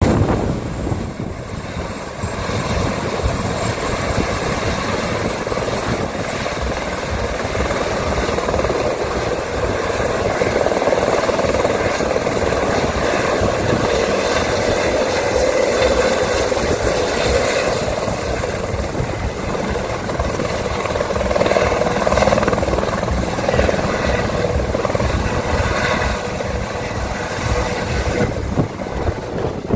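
Airbus H130 helicopter running loudly and steadily: the rotor's rapid low beat under a high, thin turbine whine.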